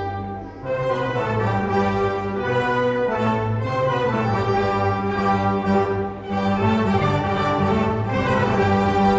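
Orchestra playing, with strings and brass carrying sustained melodic lines. The music thins out briefly about half a second in and dips again about six seconds in before swelling back.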